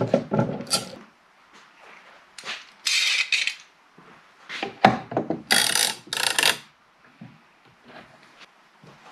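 Steel bar clamps being set across a cracked wooden panel: a quick cluster of knocks and clanks as they go down, then several short metallic rasps as the clamp jaws are slid along the bars and screwed tight.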